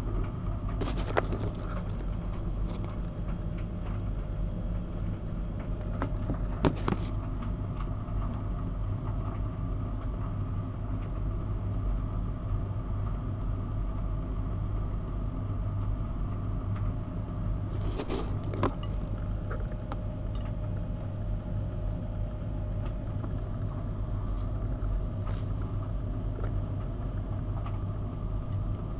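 Miele W 5873 front-loading washing machine tumbling a wet load of dark cotton laundry during the wash, with a steady low hum. A few short clicks, about three, come from buttons or zippers knocking against the drum.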